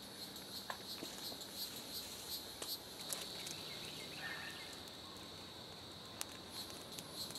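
Faint insect chorus: a steady high buzz pulsing about three times a second, with a few faint clicks and snaps as twigs are fed to a small, newly lit kindling fire.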